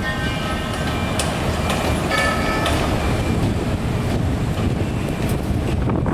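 Heavy construction machinery running with a steady, loud low engine rumble. Brief high-pitched whining tones come in near the start and again about two seconds in, with occasional sharp metallic knocks.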